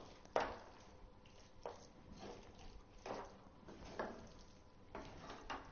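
Wooden spatula stirring and folding thick, wet curd rice in a nonstick pan: faint soft squelching strokes about once a second.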